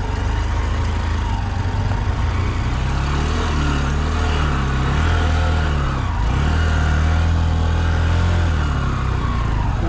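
Honda Shine motorcycle's single-cylinder four-stroke engine pulling at low speed over a rough dirt track, its note rising and falling several times with the throttle.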